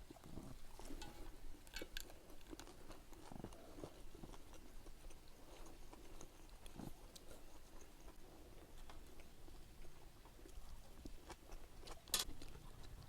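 Faint chewing and crunching, a run of small irregular clicks, with one sharper click near the end.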